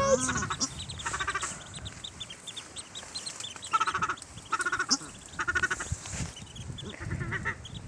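Ducklings peeping: many short, high chirps with quick runs of repeated calls every second or so.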